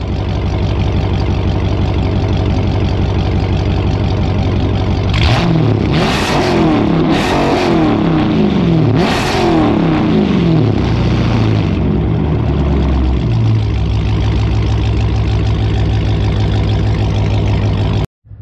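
2017 Dodge Charger Daytona 392's 6.4-litre HEMI V8, straight-piped with catless mid-pipes and no resonator or muffler, running loud at idle. About five seconds in it is revved four times in quick succession, each rev rising and falling, then it settles back to idle.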